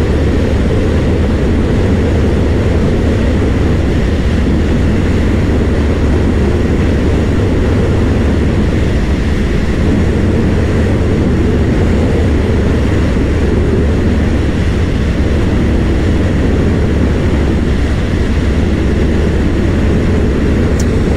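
Strong headwind rushing steadily over the microphone of a Honda PCX 160 scooter held at full throttle at around 110 km/h, with the scooter's engine and tyres droning underneath.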